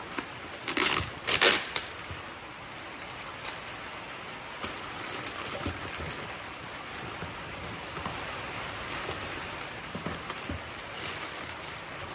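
Plastic packaging bag crinkling and rustling as it is cut open and worked off by hand. There are two louder rustles about a second in, then steady crackling handling noise.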